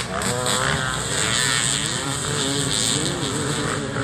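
Off-road motorcycle engines revving as the riders accelerate away, several engine notes rising and falling over each other and slowly fading.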